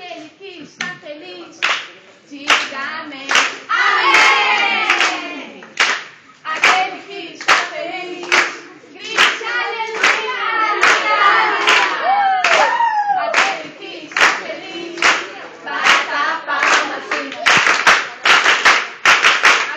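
A group of young people singing together while clapping their hands to a steady beat, a little more than one clap a second. The clapping grows denser near the end.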